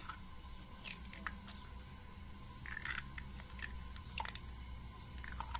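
Eggs being cracked into a bowl: a string of short, sharp shell cracks and clicks, spread through the few seconds, over a steady low hum.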